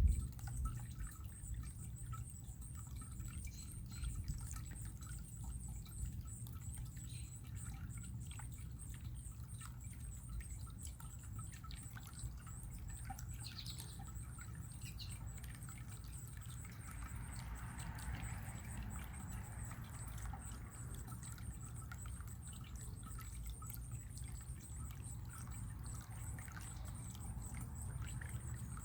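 Running water trickling and pouring steadily, with a low rumble, faint bird chirps here and there, and a steady high-pitched hum throughout.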